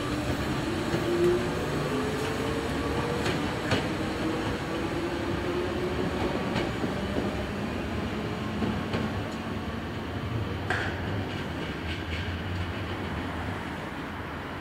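Merseyrail electric multiple unit pulling away and accelerating, its traction motors giving a whine that rises in pitch over the first several seconds over a steady rumble, with a few sharp clicks from the wheels on the track. The sound slowly fades as the train draws off.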